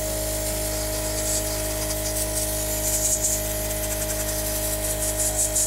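Crayola Air Marker Sprayer's small electric air pump running with a steady whine, with the hiss of air spraying marker ink through the nozzle.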